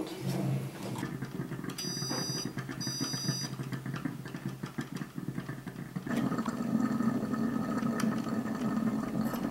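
Vita Steam electric food steamer running with a steady low hum, just switched on. Two short high electronic beeps from its control panel come about two and three seconds in, and the hum grows louder about six seconds in.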